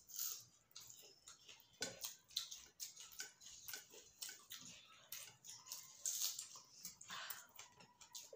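Two people eating rice and chicken curry by hand: chewing and lip-smacking, with many small clicks and the squelch of fingers mixing rice on steel plates.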